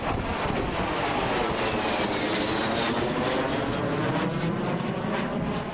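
Aircraft engines passing overhead, a high whine and engine tones falling steadily in pitch as the aircraft go by, over a continuous rumble.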